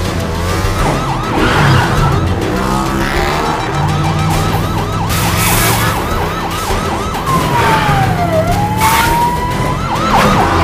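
Police van siren on a fast yelp, rising and falling three or four times a second, changing briefly to one slower falling-then-rising sweep about three-quarters through, over a low rumble of the vehicle. Two loud rushing bursts come around the middle and near the end.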